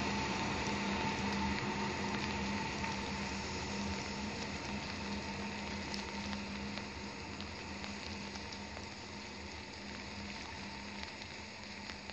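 Electric regional train pulling away and fading into the distance: a steady hum and faint whine slowly dying down under a hiss of rain on wet ground.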